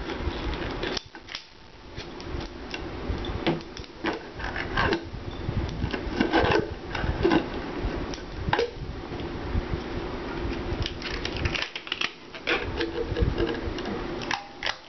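Rubber balloon being stretched by hand over the mouth of a glass jar: rubbing of the rubber against the glass, with many scattered clicks and knocks as the jar is handled.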